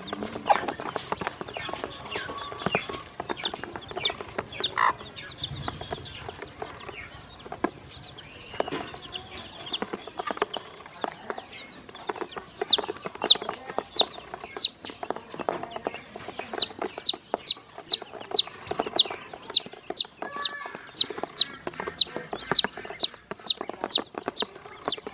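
Chicks and ducklings peeping, with many small clicks of beaks pecking feed off a plastic basin. In the second half the peeps settle into a loud, even run of about two a second.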